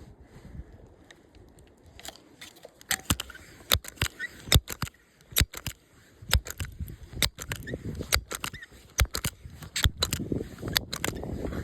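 Handling noise close to the microphone: a run of irregular sharp clicks and snaps with rustling, growing busier in the second half.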